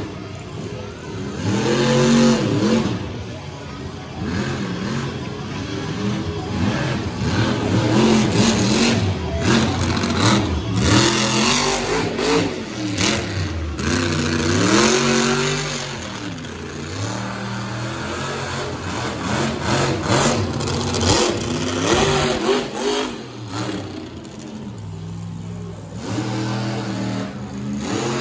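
Monster truck engine revving hard and falling back again and again, its pitch swinging up and down in repeated surges through a freestyle run.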